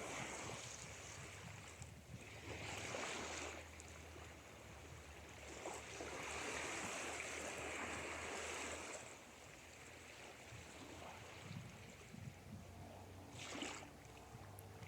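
Soft ocean waves washing in and out, faint, with three slow swells of surf.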